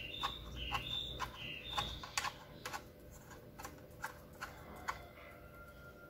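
Light, quiet clicks, about two a second, as a detachable antenna is turned by hand onto the threaded connector on the back of a D-Link DWR-920 4G modem-router. A few short, high tones sound in the first two seconds.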